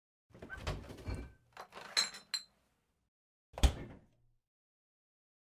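Refrigerator door pulled open, a beer can clinking as it is lifted off the shelf, then one hard thump as the door swings shut about three and a half seconds in.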